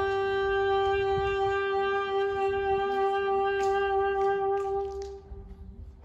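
Saxophone holding one long, steady closing note that fades and stops about five seconds in, ending the piece.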